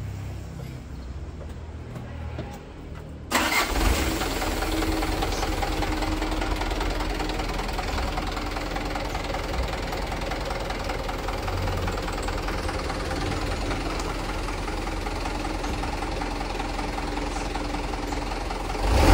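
Mitsubishi Fuso Canter (Colt Diesel HD125PS) truck's turbo-intercooled diesel engine running steadily, low and faint at first, then suddenly much louder about three seconds in, with a short loud burst at the very end.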